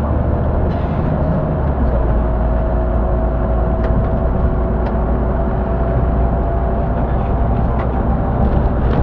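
City bus driving along at speed, heard from inside the cabin: a steady low engine and road drone with a faint steady whine over it.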